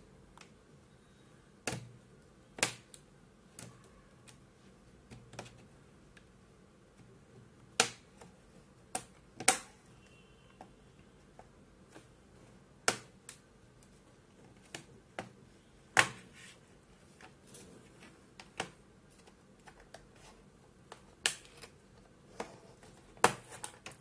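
Plastic snap clips of a Lenovo IdeaPad 3 laptop's bottom cover clicking loose one after another as a plastic pick is worked along the seam. The sharp clicks come at irregular intervals, with several louder snaps among fainter ticks.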